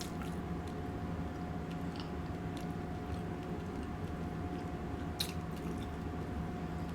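A person chewing food close to the microphone, with a few soft clicks and smacks, over a steady low hum.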